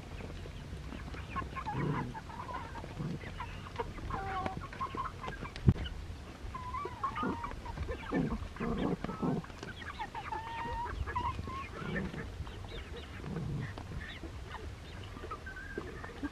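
Domestic ducks quacking, many short calls overlapping and coming irregularly. A single sharp knock about six seconds in.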